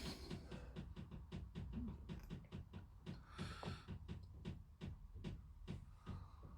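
Faint, fast, even ticking, about four clicks a second, with a brief soft hiss a little past halfway.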